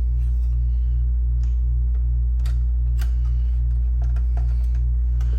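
Steady low electrical hum with a faint pulsing throb, and a few light clicks of a screwdriver working small screws in a metal chassis.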